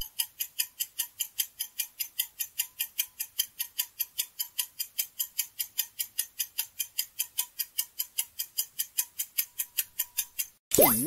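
Countdown-timer ticking, a fast, even clock tick at about five ticks a second, running out the ten-second guessing time. It stops shortly before the end, where a short pop sweeps down and back up in pitch.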